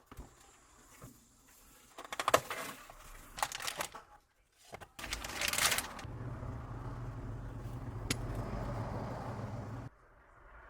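Clicks and rattles of plastic and metal parts being handled as a VFC Glock 17 airsoft pistol is unboxed and taken apart. They are followed by a short burst of noise and then a low steady hum that cuts off suddenly, with a single sharp click partway through.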